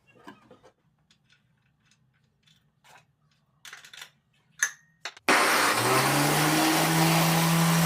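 A few faint clicks and knocks, then about five seconds in an angle grinder switches on: its whine rises quickly as it spins up, then it runs steadily at full speed.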